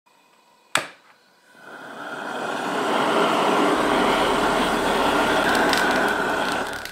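A hose-fed gas torch: a sharp click about a second in, then the torch flame rushing, building over a couple of seconds and holding steady as it blasts into a steel basket of charcoal, easing off near the end.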